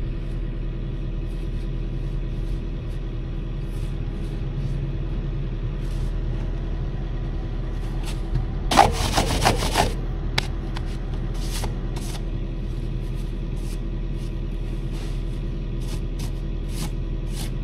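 Heavy equipment engine running steadily. About halfway through a loud burst of noise lasts about a second and a half, followed by a scatter of light clicks and knocks.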